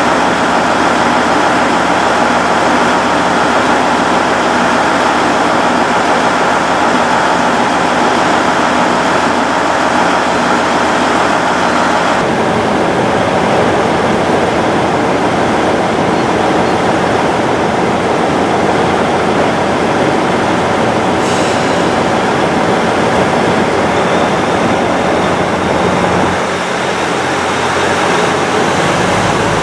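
Train running, a loud, continuous rumble of wheels and rails. Its low-end character changes about twelve seconds in and again near the end.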